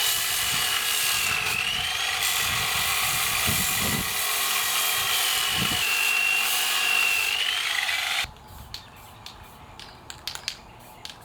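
Power sanding tool running against a thick steel angle bar, its high motor whine dipping now and then as it bears on the metal. It stops abruptly about eight seconds in, leaving light clicks and taps.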